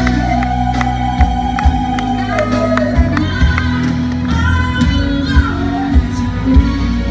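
A woman singing live into a microphone over band music with a steady drum beat, holding one long note for the first couple of seconds before moving into shorter phrases.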